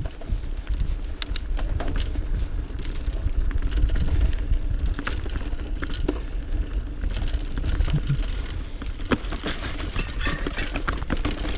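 Mountain bike rolling fast down a rocky forest singletrack: a steady low rumble of tyres and wind on the camera microphone, scattered with sharp clicks and knocks as the bike rattles over stones and roots.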